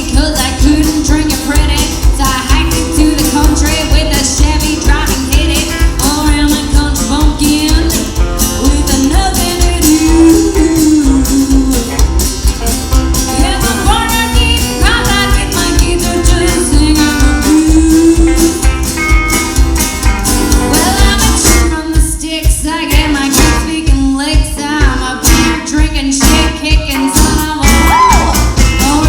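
Band playing a country-style song, with a woman singing lead over guitar and a steady beat. About three quarters of the way through, the backing thins out for a few seconds.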